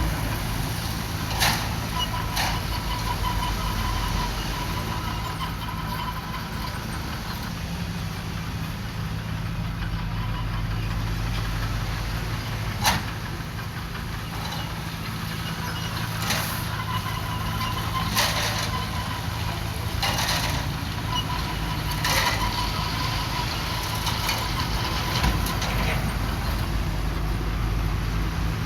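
Heavy diesel engine of earthmoving machinery running steadily, with several short sharp clanks scattered through.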